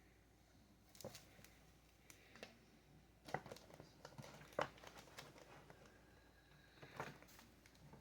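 Near silence: quiet room tone broken by a few faint, scattered taps and rustles, the clearest a little over three seconds in and near the middle.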